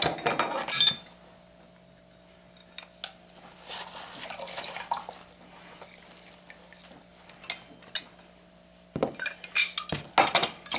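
Kitchen utensils clattering and a hand-held citrus juicer squeezing half a lime over a glass measuring cup. There are sharp clatters at the start, a soft squeezing noise in the middle, and a run of clicks and clinks against the glass near the end.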